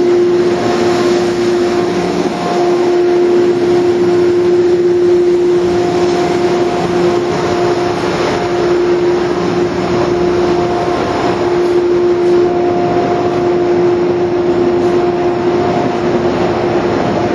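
Train standing at a station platform: a steady hum on one unchanging pitch over a constant wash of noise.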